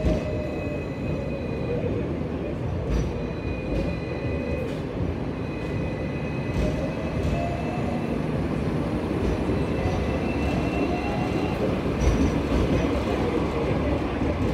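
Hong Kong double-decker tram running along street rails, heard from inside on the upper deck: a steady low rumble of the wheels and running gear, with thin high wheel-on-rail squeals that come and go and a few short clicks.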